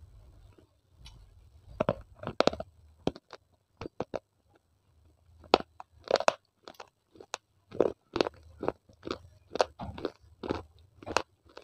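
Baked clay being bitten and chewed close to a lapel microphone: a few sharp crunches about two seconds in, then steady crunchy chewing at about two crunches a second from about six seconds on.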